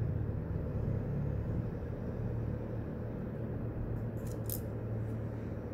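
A steady low rumble of background noise, with a few faint short ticks about four seconds in.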